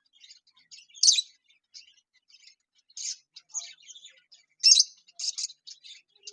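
Lovebirds chirping and chattering in quick high-pitched bursts, with two louder shrill calls, one about a second in and another about three-quarters of the way through.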